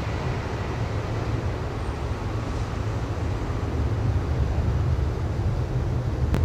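Steady low rumbling background noise with a faint hiss, and a single short click near the end.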